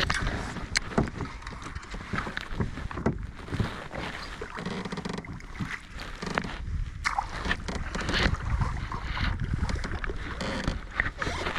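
Water slapping against a kayak's hull, with irregular clicks and knocks of the hull and gear over a steady low rumble.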